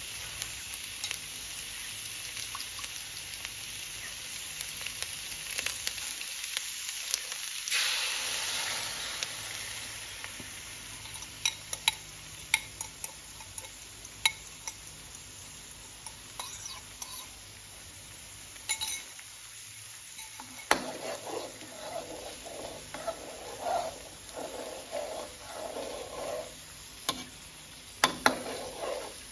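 Onions and dried chillies sizzling in a hot steel wok, with a spatula scraping and clicking against the pan. About eight seconds in the hiss surges loudly as the curry sauce goes into the wok, then the frying settles quieter while the sauce is stirred and scraped around the pan.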